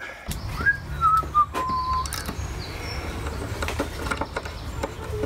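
A steady low motor drone starts a moment in and keeps going. Over it, in the first two seconds, come a few whistled notes stepping down in pitch, the last one held.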